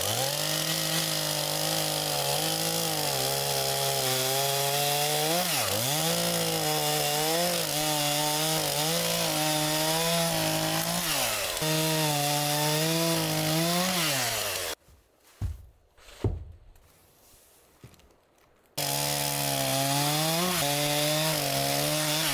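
Chainsaw running at speed, crosscutting a log into short rounds, its pitch dipping briefly each time the chain bites into the wood. About two-thirds of the way through it stops for a few seconds, with a few short knocks, then runs again.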